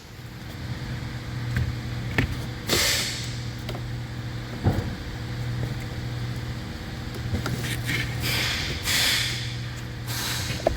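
A new AC blower motor being fitted into its housing by hand: scattered plastic knocks and clicks with short scraping sounds. A steady low hum runs underneath.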